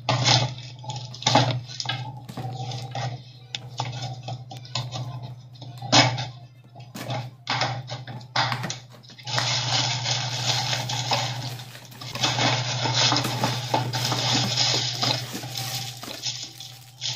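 Toy pieces and packaging being handled: scattered knocks and clicks of plastic and cardboard pieces, then from about halfway through a long stretch of rustling and crinkling of packaging. A steady low hum runs underneath.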